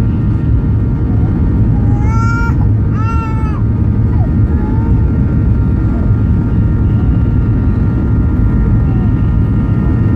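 Boeing 737-800's CFM56-7B jet engines heard from inside the cabin: a loud, steady rumble with a faint steady whine over it. A baby cries twice, short wails about two and three seconds in.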